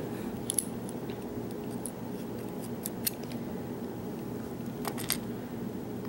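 Metal tweezers handling small brass lock pins from a disassembled lock cylinder, giving a few faint, sharp clicks over a steady low room hum.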